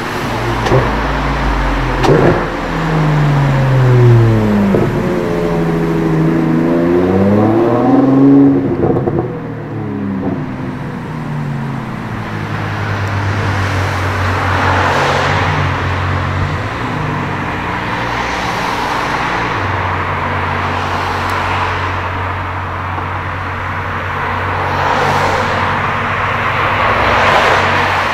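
Supercar engine revving up through several gear changes in the first ten seconds, then settling to a steady low running note. Several times, a hiss of tyres on the wet road swells and fades as cars pass.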